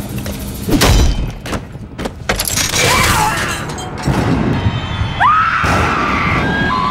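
Horror-film soundtrack: dramatic music with heavy thuds and crash-like impacts in the first half, then a scream that rises sharply and is held, with a second held cry near the end.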